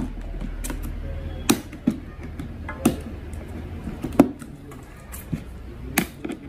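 Irregular sharp plastic clicks and taps, about one or two a second, as nylon trimmer line is handled and pushed into the slots of a brush cutter's bump-feed trimmer head.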